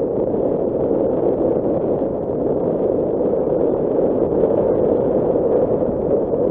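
Nissan Qashqai J11 driving along a loose, stony dirt track: steady driving noise of tyres rolling over gravel and the car body moving, with no clear engine note.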